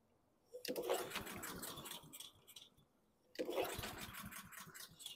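Honda GCV160 mower engine being pull-started twice, about a second in and again past three seconds. Each pull spins it over with a quick run of knocks that dies away without the engine catching: it will not start, and the intake is still dry.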